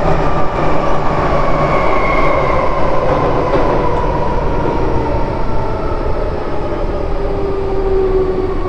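MTR M-train electric multiple unit running in a tunnel, heard from inside the car: steady loud wheel and running noise, with a motor whine whose pitch falls slowly as the train slows.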